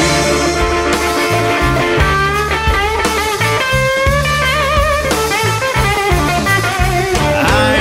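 Blues band playing an instrumental passage: a lead guitar solo with bent, wavering notes over a bass line and drums.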